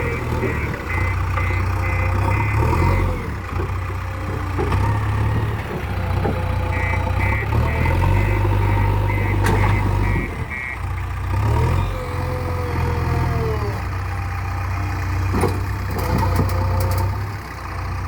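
JCB backhoe loader's diesel engine running steadily under working load. Its reversing alarm beeps about two and a half times a second in two spells, one at the start and another from about seven to eleven seconds in.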